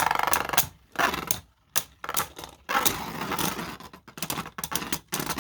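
Beyblade spinning tops battling in a plastic stadium, one on a short 3D-printed driver: a rattling scrape with repeated sharp clacks as the tops collide, in uneven spurts with brief pauses.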